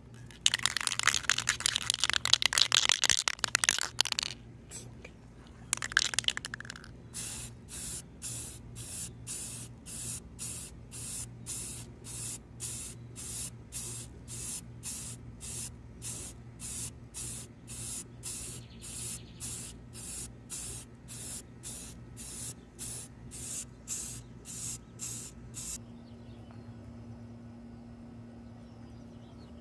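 A loud spray-like hiss for about three and a half seconds, a short second hiss, then a long run of short, regular swishing strokes about twice a second that stop abruptly near the end, leaving a steady low hum.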